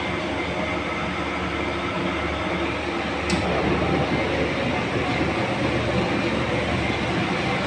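Large commercial laundry machine running with a steady rumbling drum noise, one sharp click about three seconds in.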